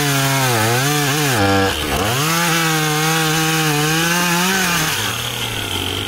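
Husqvarna two-stroke chainsaw cutting through a downed tree limb at high revs. The engine pitch sags as the chain bites into the wood, with a deep dip about two seconds in before it revs back up. About five seconds in, it drops to a lower steady idle as the cut finishes.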